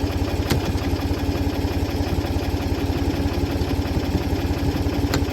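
Tractor engine idling steadily with a fast, even low pulse. Two short sharp clicks are heard, about half a second in and near the end.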